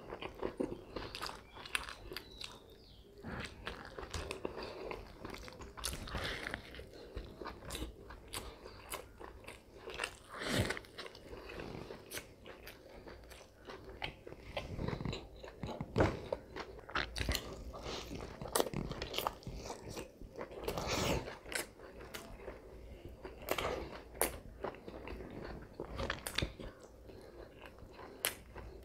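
Close-miked chewing and biting of a fried-fish sandwich: wet mouth clicks and soft crunches, irregular and continuous.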